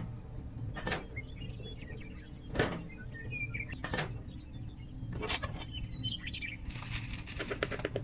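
Small model pieces knocking as they are set down on a hard surface, several separate knocks, with faint bird chirps behind. Near the end, a fast rattle of clicks for about a second and a half.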